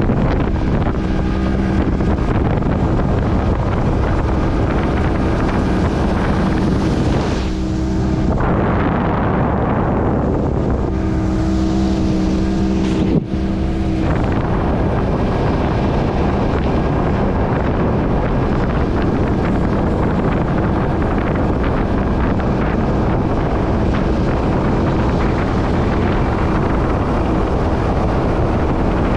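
Mercury outboard motor running steadily at speed, pushing the boat across the water, under heavy wind buffeting on the microphone and the rush of the wake.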